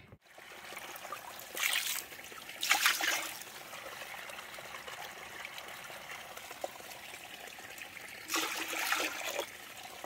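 A small stream trickling steadily over stones, with a metal ladle scooping and pouring water in louder splashy spells at about two and three seconds in and again near the end.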